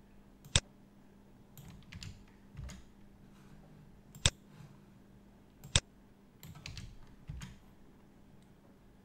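Computer keyboard and mouse clicks while editing spreadsheet formulas: three sharp clicks, about half a second in, past four seconds and near six seconds, with softer runs of key taps between them.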